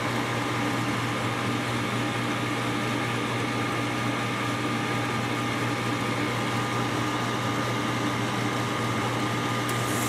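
GE Potscrubber 970 dishwasher running early in its cycle as it fills: a steady motor hum with an even hiss of water coming in.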